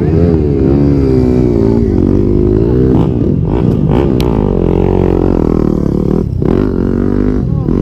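Motocross bike engines running close by, their pitch rising and falling as they rev, with a brief drop about six seconds in.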